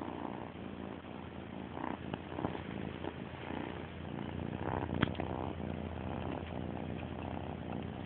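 Domestic cat purring steadily, close to the microphone, with a sharp click about five seconds in.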